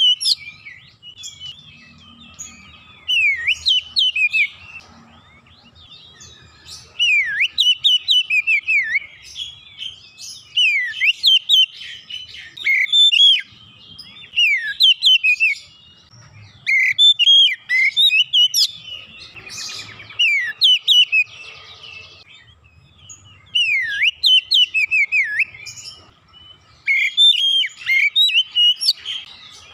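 Oriental magpie-robin singing a loud, varied song of whistled phrases and quick sweeping notes, in bursts of a second or two with short pauses between: the bird in full, energetic song.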